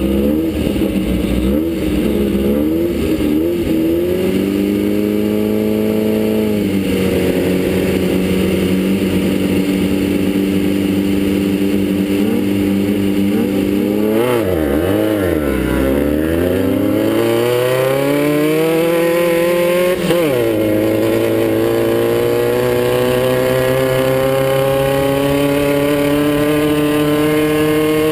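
Class 9 off-road race buggy's engine running hard under throttle, heard on board. Its pitch climbs and drops sharply at gear changes about a quarter of the way in and again about two-thirds through, and in the middle it falls away and climbs back as the throttle is lifted and reapplied.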